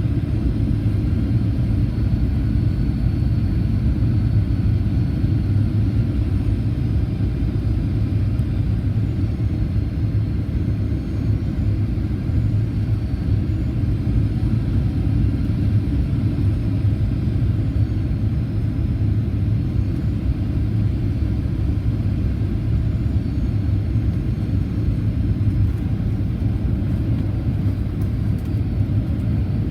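Cabin noise inside a Boeing 737-800 taxiing after landing. A steady low rumble comes from the idling CFM56 engines and the airframe, and a faint high whine rises and falls slightly.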